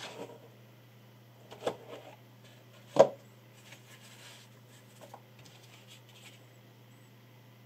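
Handling noise: three sharp knocks, the loudest about three seconds in, then a smaller one and some light rustling, over a steady low electrical hum.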